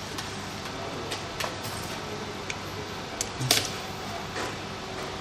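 A few scattered light clicks and taps from handling small tools and wires, the sharpest about three and a half seconds in, over a faint steady hum.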